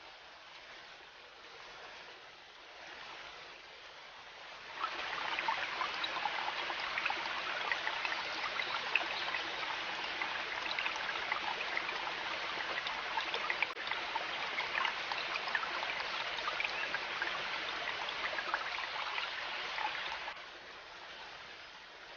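River water running and trickling, a dense splashing rush; it becomes much louder about five seconds in and drops back to a faint rush near the end.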